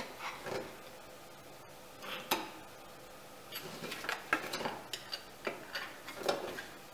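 Flathead screwdriver scraping and prying at the base of a stainless chainplate on a fiberglass deck: irregular runs of metal scrapes and clicks, busiest in the second half.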